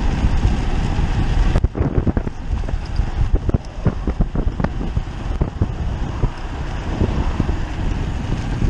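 Wind buffeting the microphone, a dense rush that drops off suddenly about a second and a half in, followed by a run of irregular clicks and knocks over a low rumble.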